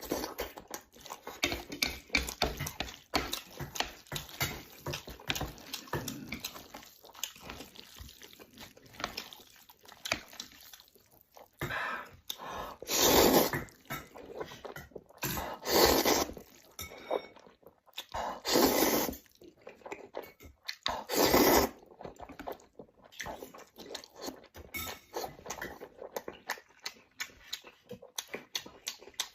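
Close-miked eating of stir-fried instant noodles: steady wet chewing and mouth smacks, with four louder noisy slurps of about a second each in the middle.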